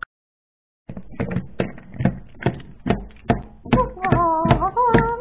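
Music: a steady tapping beat of about two to three knocks a second, joined near the end by a wavering melody line.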